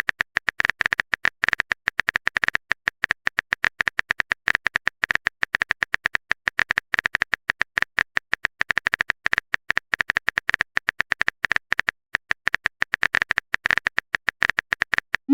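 Phone keyboard typing sound effect: a long run of rapid, uneven clicks with brief pauses, as a text message is typed out.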